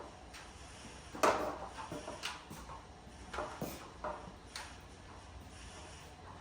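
Irregular clanks and knocks of metal truck body parts and tools being handled, the loudest about a second in, followed by several lighter ones.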